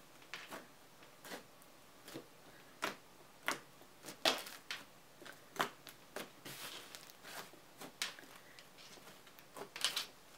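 Butter slime being kneaded and pressed by hand, giving off irregular sharp clicks and small sticky pops.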